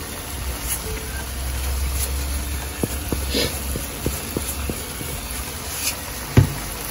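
Salt being shaken from a canister over a pan of simmering curry: a run of light taps, about three or four a second, over a steady low hum, with a single thump near the end.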